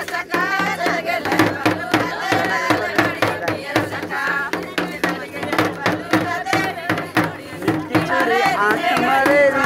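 Voices singing a Karsa folk song over steady drum beats.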